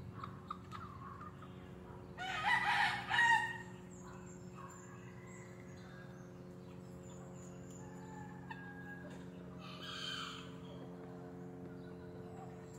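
A rooster crowing once, loud, about two seconds in and lasting about a second and a half. A fainter call follows near ten seconds, over a steady low hum.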